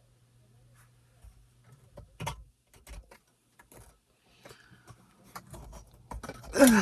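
Light, irregular clicks and knocks of plastic and metal garment-rack parts being handled during assembly, with a louder burst of handling noise near the end.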